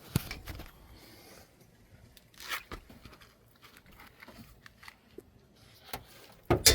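Scattered clicks and knocks of hand tools working a front brake caliper bolt, with a sharp knock near the end.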